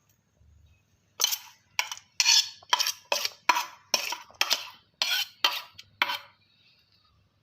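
Metal kitchen utensil clattering against cookware: about a dozen sharp strikes, two or three a second, stopping about a second before the end.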